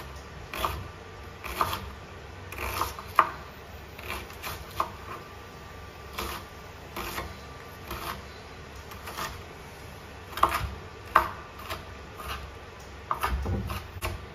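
Irregular knocks and clicks of kitchen utensils, roughly one a second, with a few sharper, louder strikes.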